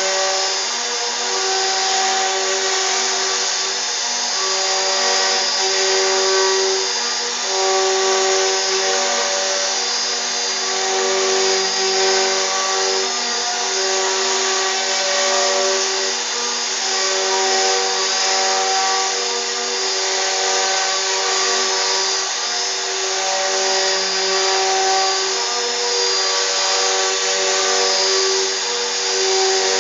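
CNC router carving: a steady rush of cutting noise with a humming tone that comes and goes every second or two as the machine moves.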